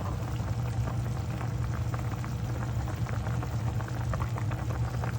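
A pot of chicken and vegetable soup bubbling at the boil, with many small irregular pops over a steady low hum.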